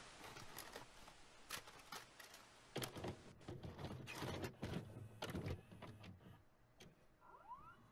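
A VCR taking in and loading a videocassette: a run of mechanical clunks and clicks from the cassette mechanism, with a brief rising whine near the end.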